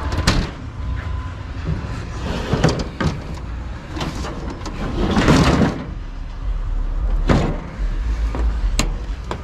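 Scrap metal being unloaded: a series of knocks and clanks, with a longer scrape about halfway through, as an appliance is moved.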